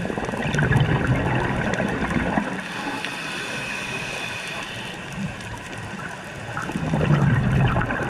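Exhaled bubbles from a scuba regulator, heard underwater: a bubbling rush starting about half a second in and lasting about two seconds, and a second one near the end, with a quieter steady hiss between.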